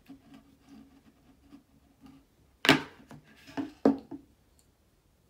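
Makeup items being handled and set down on a hard tabletop: faint small clicks and rattling, then three sharp knocks between about two and a half and four seconds in.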